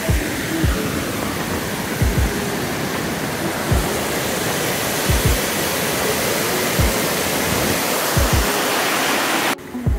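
Waterfall rushing, a steady wash of falling water that grows a little louder and cuts off abruptly near the end. Background music with a low, regular beat plays underneath.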